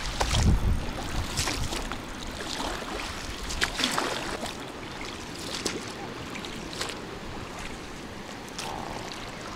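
A small boat being rowed through choppy water in a strong wind: irregular oar splashes about every second or so over steady water lapping and wind noise, with a low wind rumble on the microphone near the start.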